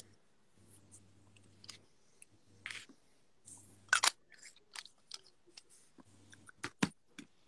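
A series of small irregular clicks, taps and short rustles close to the microphone. The loudest are a quick double click about four seconds in and two sharp taps near the end.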